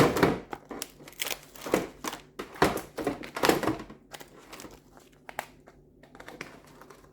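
Plastic food packets crinkling and rustling as they are handled and packed into a container, dense for the first few seconds, then a few lighter rustles and clicks.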